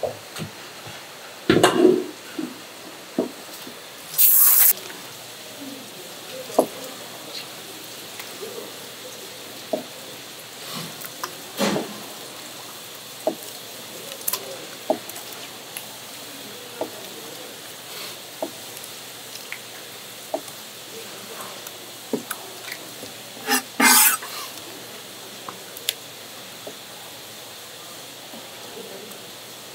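Wet seafood handling on a market counter: scattered knocks, clicks and wet squishes with dripping water. There are a few louder short bursts, one near the start, a brief hiss a few seconds in, and one near the end.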